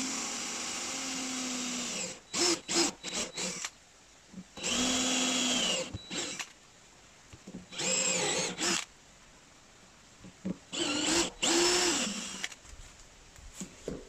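Cordless drill boring a hole through the plastic wall of a 2000-litre water tank. It runs in about five separate bursts of one to two seconds, with quick blips of the trigger between them, and the motor's pitch sags and recovers as the bit bites.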